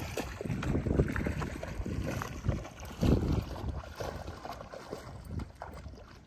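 Wind buffeting the microphone in uneven gusts, loudest about three seconds in, with water splashing as a dog wades in the shallows.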